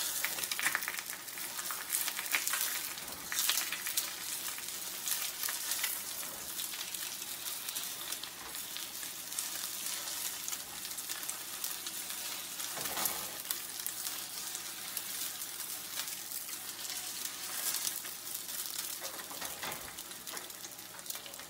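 An egg frying in a ceramic non-stick frying pan: a steady high sizzle with fine crackling. A silicone spatula slides against the pan a few times, most clearly about two-thirds of the way through and near the end.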